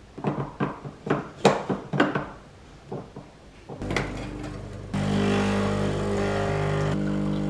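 Knocks and clicks of a tamper and metal portafilter as coffee is tamped and the portafilter is locked into the group head. About four seconds in, the home espresso machine's pump starts a steady hum, which gets louder a second later as it pulls a shot into two glasses.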